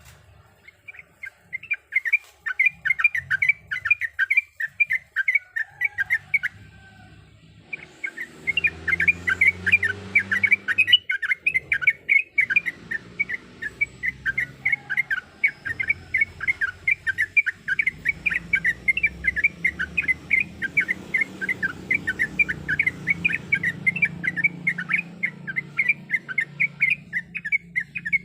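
Yellow-vented bulbul (trucuk) singing a fast, unbroken run of chirpy notes, pausing briefly about six seconds in before carrying on.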